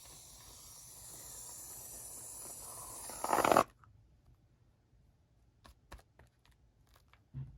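Aerosol can of shaving foam spraying in a steady hiss that grows louder and swells into a loud sputter at about three and a half seconds, then cuts off suddenly. After it come a few faint soft clicks and a brief thump near the end.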